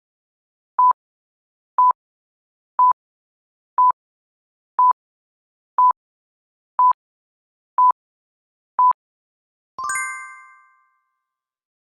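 Quiz countdown timer beeping, one short high beep a second, nine in all, followed near the end by a single bell chime that rings out for about a second to mark time up.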